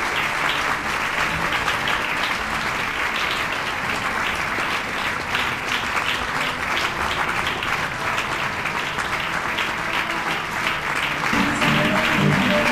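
Theatre audience applauding steadily, a dense patter of many hands clapping. Near the end, music starts up under the applause.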